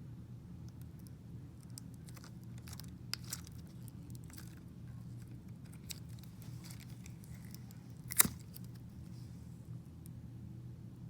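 Slime being mixed and worked by hand: scattered small wet clicks and crackles, with one sharp pop about eight seconds in, over a steady low hum.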